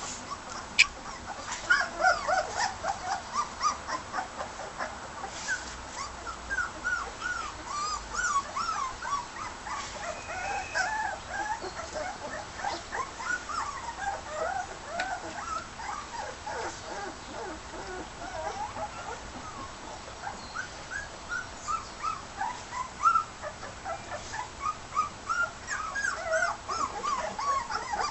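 Young border collie puppies, about 18 days old, whimpering and squeaking: many short, high squeaks overlap with no pause. There is one sharp click just under a second in.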